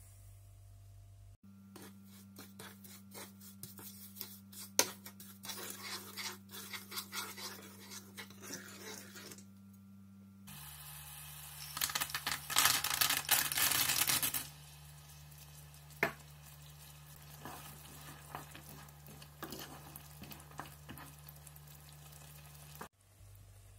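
A spatula stirring and scraping sugar syrup in a nonstick pan, with quick clicks and taps. About twelve seconds in, almonds are tipped into the bubbling syrup with a loud rattling rush lasting a couple of seconds. After that the syrup sizzles and bubbles quietly, with an occasional tap of the spatula.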